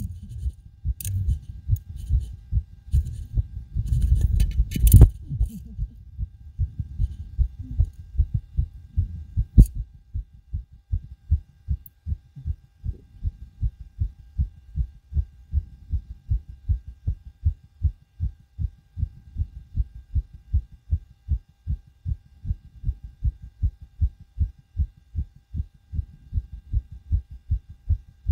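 A person's own heartbeat picked up through a homemade stethoscope microphone pressed to the chest, pounding hard and fast right after trampoline backflips. For the first five seconds it is mixed with loud knocks and rubbing noise. After that the beats come evenly and clearly.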